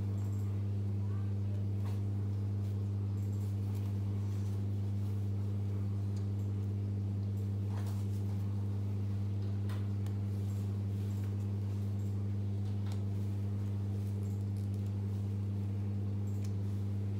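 A steady low hum runs throughout, with a few faint clicks as the hook-and-eye fasteners of a mesh waist trainer are done up.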